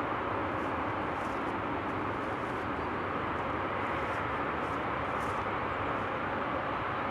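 Steady, even distant vehicle noise, with faint high chirps now and then.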